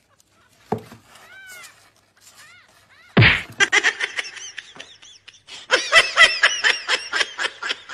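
A faint, high kitten mew about a second in, then a sudden loud thump about three seconds in, followed by a long run of rapid, high-pitched laughter.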